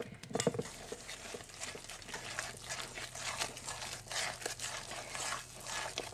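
Spoon stirring a thick, lumpy flour-and-water tempura batter in a stainless steel mixing bowl: a run of soft, irregular scraping strokes.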